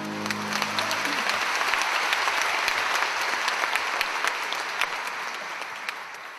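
Audience applauding at the end of a song, with the last held note of the music dying away in the first second. The clapping thins out toward the end.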